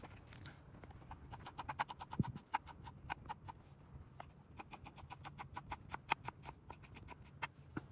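Kitchen knife chopping vegetables on a cutting board: quick runs of sharp taps with short pauses between them.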